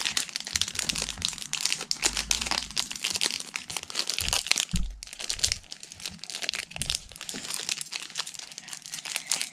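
Foil wrapper of a Pokémon card booster pack crinkling and crackling steadily as fingers pick and pull at it, trying to tear it open; the pack is hard to open.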